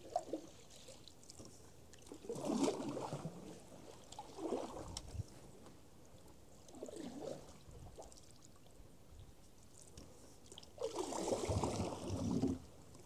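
Canoe paddle strokes in floodwater: about five separate splashing, trickling swishes, the longest one near the end.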